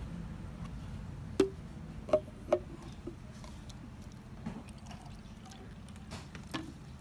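Three sharp plastic clicks from a flip-top water bottle lid being snapped open, then water pouring faintly from the bottle's spout into a baby's milk bottle.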